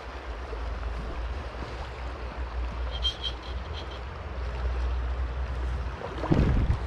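River current rushing steadily, with a low wind rumble on the microphone, and a brief high ticking about three seconds in.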